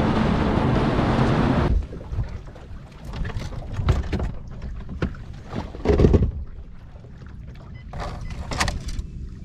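Bass boat's outboard motor running at speed with wind rush, a steady hum that stops abruptly about two seconds in. After that, wind buffets the microphone, with a few dull thumps.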